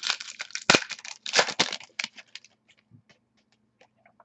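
Crinkly wrapper of a football trading-card pack being torn open and the cards inside handled. A dense run of loud crackling and rustling over the first two seconds thins out to a few light clicks.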